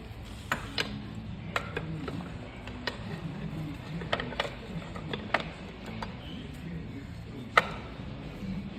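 Metal parts and tools clinking and knocking as an MTZ tractor's brake assembly is put together by hand: about nine sharp, scattered strikes, the loudest near the end.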